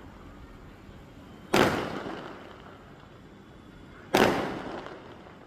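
Two aerial firework bursts about two and a half seconds apart, each a sharp bang that fades away over about a second.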